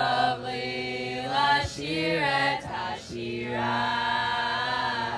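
A large group singing a slow song together, holding long notes with two short breaks between phrases.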